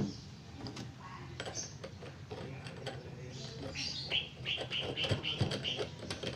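Hand-handling noise from a rubber O-ring being worked onto an oiled steel airgun tube: small clicks and rubbing of the parts, opening with one sharp click. About four seconds in, a run of about half a dozen short, evenly spaced high squeaks.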